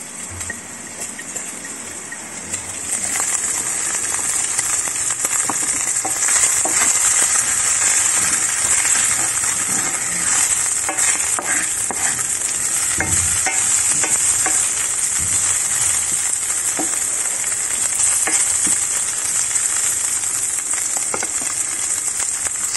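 Chopped Cypriot wine sausage pieces sizzling in a stainless steel frying pan, stirred with a wooden spatula that clicks and scrapes against the pan. The sizzle swells about three seconds in and then holds steady.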